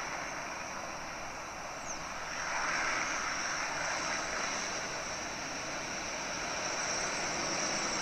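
Vast flock of European starlings over a city: a dense, high-pitched chatter of calls over a steady rushing noise that swells about two and a half seconds in.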